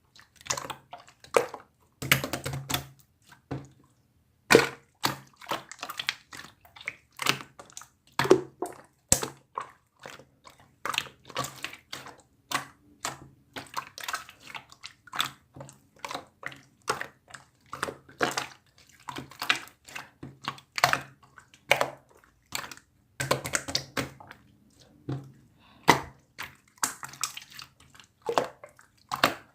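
Slime being squished, pressed and stretched by hand, making irregular wet clicks and pops, several a second.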